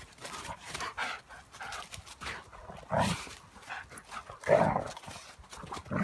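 A dog giving short, pitched calls, the two loudest about three and four and a half seconds in.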